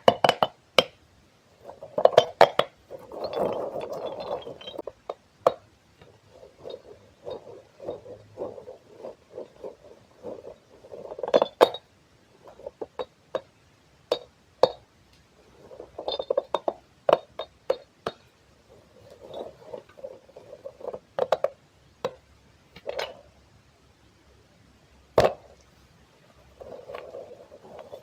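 Close-miked ASMR handling of soft objects: irregular sharp clicks and taps mixed with short, soft squishy bursts.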